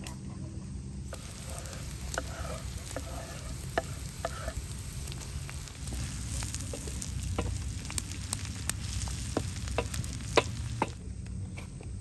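Food frying in a pan over a campfire: a steady sizzle, with sharp clicks of a utensil stirring against the pan. The sizzle starts about a second in and stops near the end.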